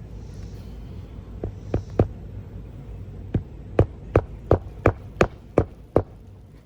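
Sharp knocks on the shingle roof: three scattered ones, then a steady run of about eight, roughly three a second, ending about six seconds in.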